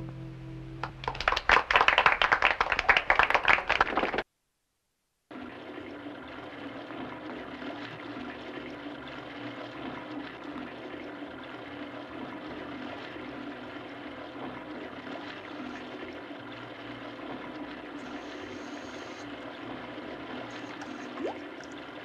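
A loud burst of clapping for about three seconds, then after a cut a toilet cistern's water runs steadily with an even hiss.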